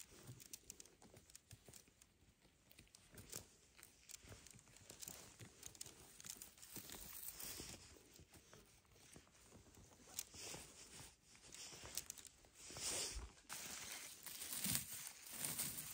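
Faint rustling, tearing and small snapping clicks as chanterelle mushrooms are pulled from moss and conifer-needle litter by a gloved hand. The clicks and scuffs grow more frequent in the second half.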